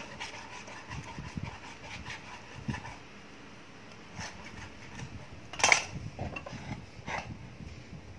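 Steel cleaver cutting raw pork on a wooden chopping block: a few scattered knocks of the blade on the wood, with one sharp loud knock about two-thirds of the way through.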